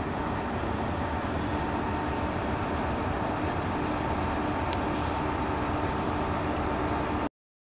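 Diesel engine of a GWR HST (Class 43) power car running steadily with an even hum, until the sound cuts off abruptly near the end. A brief high chirp sounds about two-thirds of the way through.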